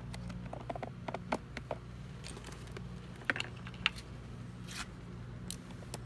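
Small plastic clicks and taps as blade fuses are handled and pushed back into a motorcycle's fuse box, a few of them sharper than the rest, over a steady low hum.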